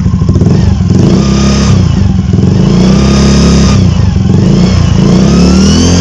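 Scooter engine revved in repeated blips, with a high whistling whine from the aftermarket 'turbo sound effect' plate in the engine's cooling-fan blower cover. The whine rises and falls with each rev about three times, then climbs steadily near the end, a supercharger-like whistle.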